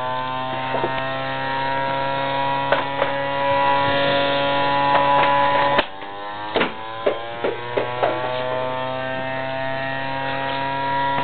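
Pitching machine's electric motor running with a steady whine over a low hum. About halfway through there is a sharp knock, the pitch drops suddenly and then climbs back up over a couple of seconds, with several more knocks.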